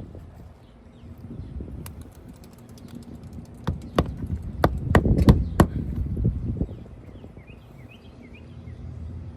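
A run of about six sharp knocks in quick, uneven succession, a hammer driving roofing nails to fasten a replacement asphalt shingle, over a low rumble.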